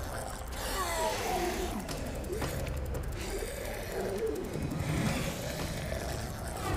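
Drawn-out, wavering moans and groans from a parasite-mutated human creature, over a low steady rumble.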